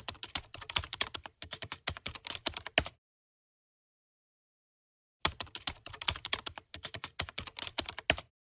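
Typing sound effect: rapid keyboard key clicks in two runs of about three seconds each, with a silent gap of about two seconds between them, matching text being typed out on screen.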